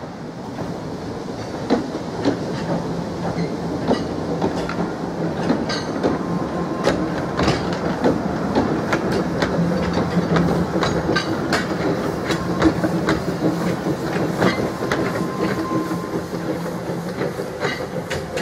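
Narrow-gauge train worked by a Hunslet 0-4-0 saddle tank steam locomotive approaching, with a steady rumble and an irregular run of sharp clicks from the wheels over the rail joints; the sound builds up in the first couple of seconds.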